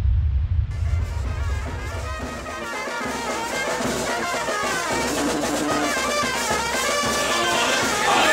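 A deep rumbling sound effect that fades away over the first two seconds or so, giving way to music with brass and drums.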